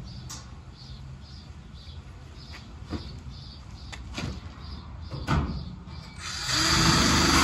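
A few light knocks of metal being handled, then about six seconds in a loud, steady welding arc starts up on the car's sheet-metal quarter panel.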